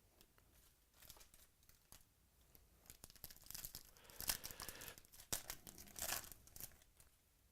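Crinkly trading-card pack wrapper being torn and crumpled in the hands. The crackling starts about a second in, is busiest in the middle, and stops near the end.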